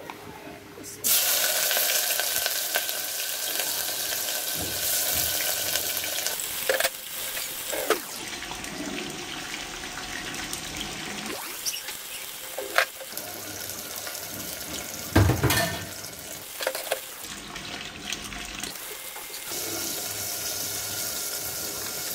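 Food frying in hot oil in an aluminium pot: a loud sizzle starts suddenly about a second in, as the food goes into the oil, and keeps on steadily. A few short knocks are heard along the way, the loudest about halfway through.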